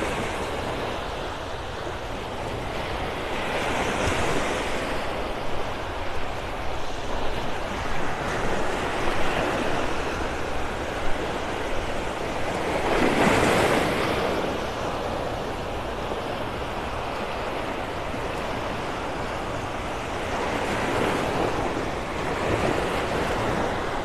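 Small Gulf of Mexico waves breaking and washing up on a sandy beach, the surf swelling and fading several times, loudest a little past halfway.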